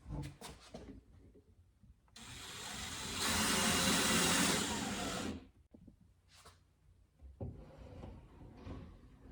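Power drill driving a screw into wood: the motor speeds up, runs at full speed for about two seconds, then stops suddenly, with a few light knocks afterwards.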